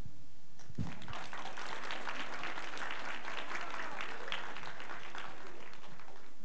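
Audience clapping, starting about a second in and thinning out near the end.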